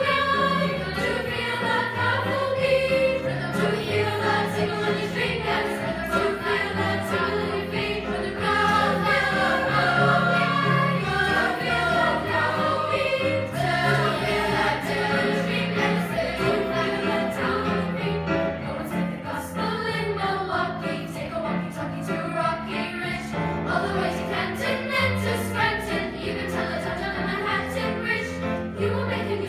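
Children's school choir singing a song in parts, holding and moving between notes, with low accompaniment notes sounding beneath the voices.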